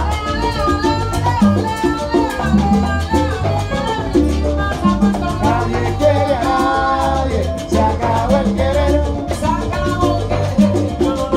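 Cuban salsa band playing live: congas and percussion over a repeating bass line, with voices singing.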